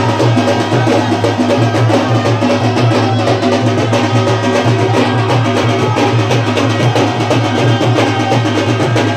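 Loud music with drums playing a steady, driving beat.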